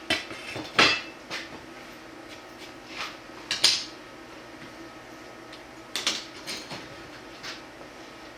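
Metal parts and tools being handled on a workbench: sharp clinks and knocks in a few short clusters, the loudest about a second in and near four seconds, over a faint steady hum.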